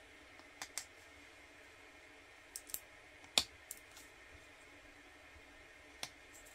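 A few sharp, scattered clicks and taps of small 3D-printed plastic parts being handled and fitted together around a pulley wheel with a metal bearing in its hub. The loudest click falls about halfway.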